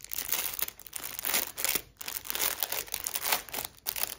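Wrapping crinkling and rustling as a package of cross-stitch fabric is opened by hand, in an irregular run of crackles with a short pause about two seconds in.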